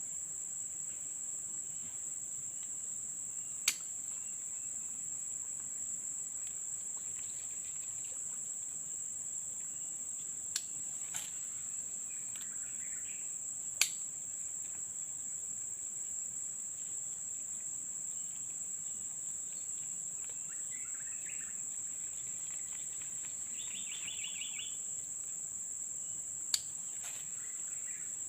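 Steady high-pitched insect drone, crickets trilling without a break. Five sharp clicks stand out, and a few short bird-like chirps and one quick trill come near the middle and towards the end.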